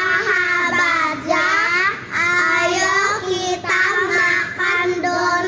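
Three young girls singing together, a run of sung phrases with held notes and short breaks between them.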